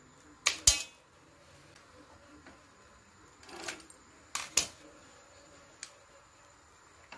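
Scissors snipping through the hard leg shell of a raw blue swimmer crab: a close pair of sharp cracks about half a second in, then a brief rustle and another close pair of sharp cracks and clicks a few seconds later as the crab is cut and handled.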